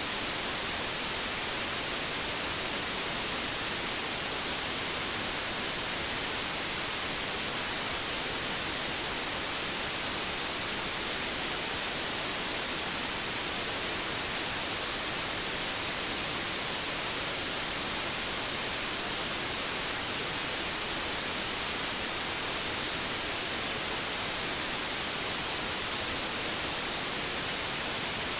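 Steady white noise: an even, unbroken hiss, brightest in the highs.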